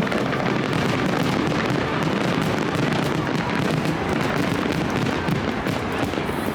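Fireworks going off in a dense, continuous barrage, with crowd voices underneath.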